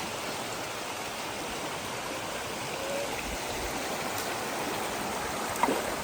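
Stream water rushing over rocks: a steady, even rush of flowing water. A brief sharp sound stands out near the end.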